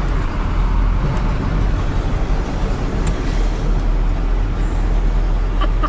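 Steady low drone of a KamAZ truck's diesel engine and road noise, heard from inside the cab while driving in traffic.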